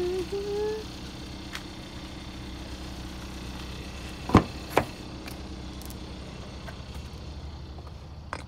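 Car engine idling steadily, with two sharp clicks about four seconds in, half a second apart, as a door handle is pulled and the car door unlatches. A brief rising chirp at the very start.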